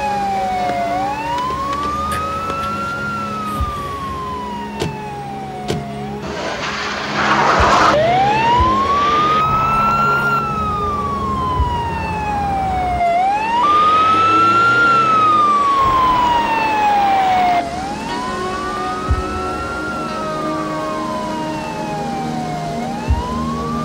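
Ambulance siren wailing: its pitch rises quickly, then falls in a long, even glide, the cycle repeating every several seconds. A rushing noise swells up twice under it.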